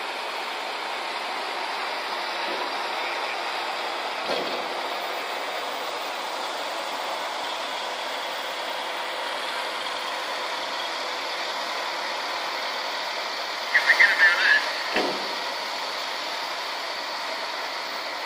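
Steady distant engine and traffic noise from a mobile crane working in the street below. About two-thirds of the way through comes a brief burst of quick high chirps, with a faint knock before it and another just after.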